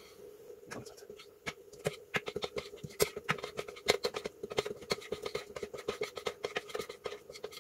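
Metal spoon stirring nearly melted chocolate in a metal bowl over a pan of hot water, clinking and scraping against the bowl several times a second.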